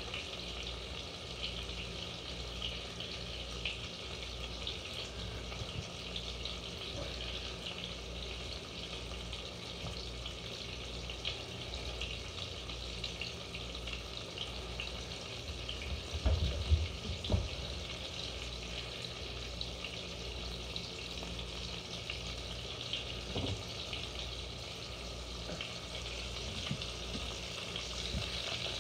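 Bacon frying in a pan: a steady sizzle dotted with small crackling pops. A few dull thumps sound a little past halfway.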